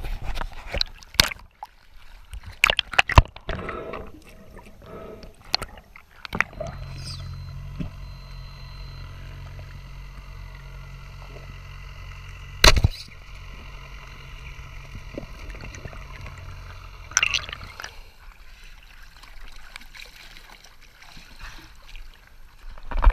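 Underwater water noise of a freediving spearfisher: bubbling and scattered knocks, then a steady low hum. About halfway through a single sharp, loud crack is heard as the speargun is fired at a yellowfin tuna.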